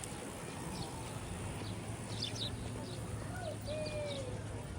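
Busy beachfront promenade ambience: a steady wash of background noise with scattered short high chirps and a brief falling call about three and a half seconds in.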